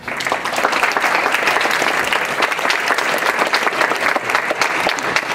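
Audience applauding: dense, steady clapping that breaks out suddenly as a choir song ends.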